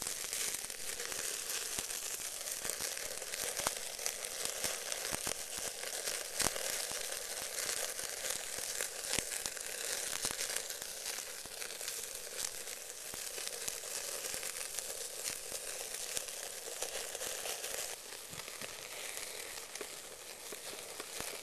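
A wild hog ham sizzling over burning charcoal on a small grill: a steady hiss full of small crackling pops as fat drips and flares on the coals. The sizzle eases a little near the end.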